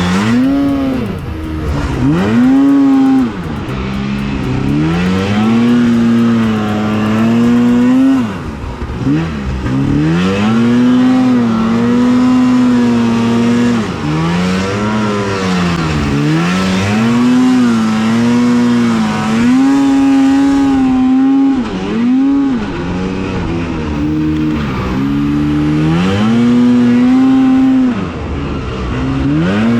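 Two-stroke snowmobile engine revving hard through fresh powder: the pitch climbs, holds high for a few seconds, drops as the throttle eases, then climbs again, over and over.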